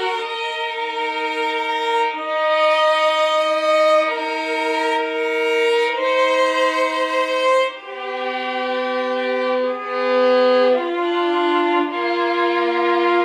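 A slow hymn tune played on violins in two-part harmony, with long bowed notes held a second or two each.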